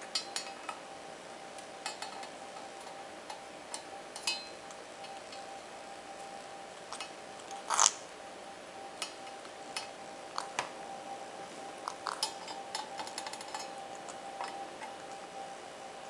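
Indian ringneck parakeet's beak tapping and clinking against a stainless steel milk jug: scattered, irregular light taps, with one louder knock about eight seconds in. A faint steady hum runs underneath.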